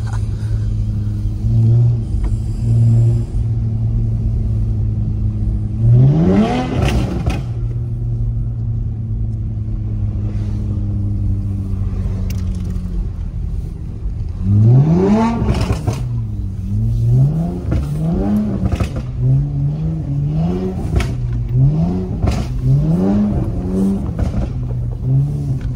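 Car engine running steadily, then revving up and back down about six seconds in and again, harder, around fifteen seconds. After that comes a run of short, repeated revs, each rising and dropping about once a second, as the car is driven in snow.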